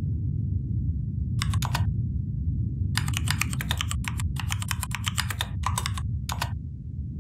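Typing on a computer keyboard: quick runs of keystrokes in several bursts with short pauses between, over a steady low hum.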